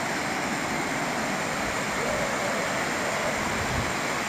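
Small waterfall rushing steadily over a rock ledge into a shallow pool.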